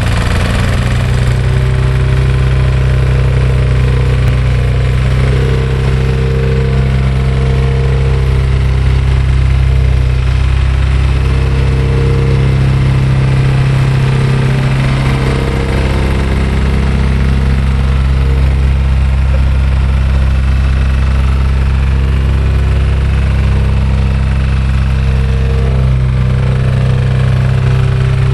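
Engine of a reversible vibratory plate compactor running steadily while the plate vibrates, with slight changes in pitch around the middle.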